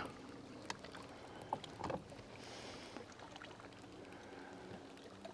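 Faint sounds of a small boat sitting on the water: soft water noise against the hull over a low steady hum, with a few light ticks and a brief hiss about two and a half seconds in.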